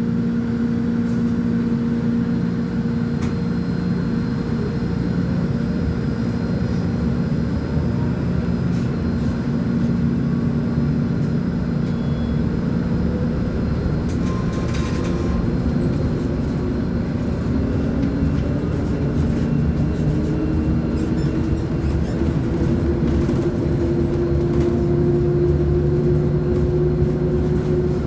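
Volvo B10M articulated bus's diesel engine running under way, steady at first, then its pitch slowly rising over the second half as the engine gathers speed.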